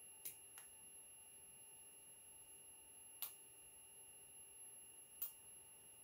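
Near silence: room tone with a faint steady high-pitched electronic whine, and four faint ticks scattered through it.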